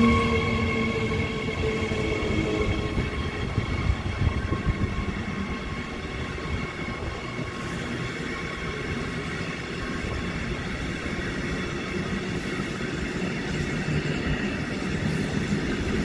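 An electric locomotive-hauled train passes close and runs away along the track. A steady whine fades out over the first few seconds, and the train's rumble on the rails carries on throughout.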